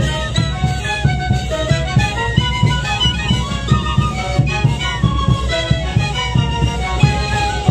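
Andean festival wind band: many players blowing the same folk tune together in short notes over a steady bass-drum beat.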